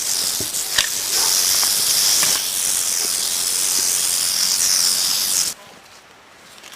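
Timber rattlesnake rattling its tail in a continuous high buzz, its defensive warning, which cuts off suddenly a little over five seconds in.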